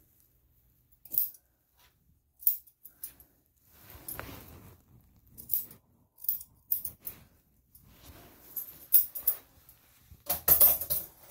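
Grooming shears snipping the hair on a Shih Tzu's face and head: separate sharp snips, one every second or so. A louder burst of clattering and rustling comes near the end.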